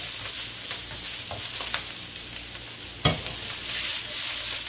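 Fried pork belly pieces with onion and leeks sizzling in hot oil in a metal wok as they are stir-fried. A spatula scrapes and clacks against the pan several times, with one louder clank about three seconds in.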